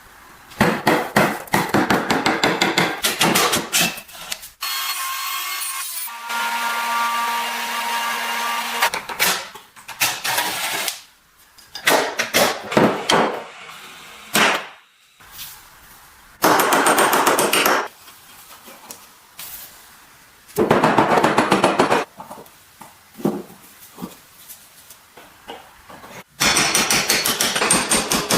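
Workshop tool work on restoration parts: several bursts of rapid scraping strokes, and a steady whine for a few seconds near the start.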